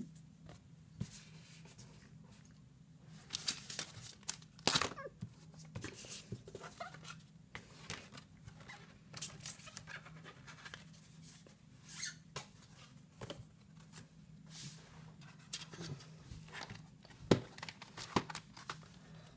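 Scattered handling noises of a DVD box set and its cards being moved about: short rustles, clicks and taps at irregular moments, over a low steady hum.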